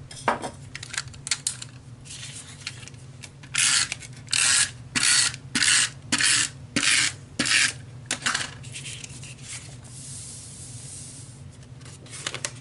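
Adhesive tape runner drawn across paper in a run of about seven short, even strokes, with scattered small clicks of paper handling before and after.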